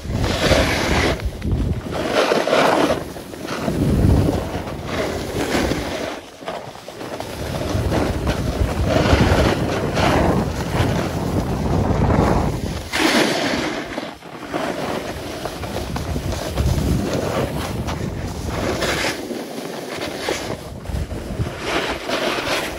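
Wind buffeting the microphone of a camera carried by a skier going downhill, mixed with the hiss and scrape of skis on packed snow. The noise swells and fades in waves every few seconds.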